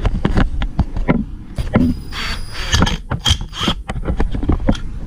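Irregular metallic clicks, knocks and scraping of hand tools and parts being worked on a motorcycle stator and its engine cover, with a short rasp of hiss about two seconds in.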